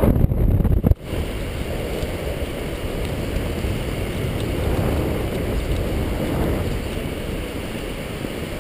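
Wind rushing over the microphone during a paraglider flight, a steady low rumbling hiss. A louder first second cuts off abruptly about a second in.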